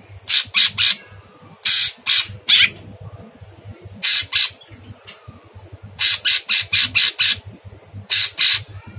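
Blue-winged leafbird (cucak cungkok) giving loud, harsh rasping calls in quick clusters of two to six short notes, with short pauses between the clusters.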